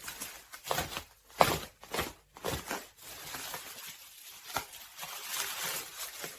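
Parcel packaging being handled and torn open: irregular rustling, scraping and ripping.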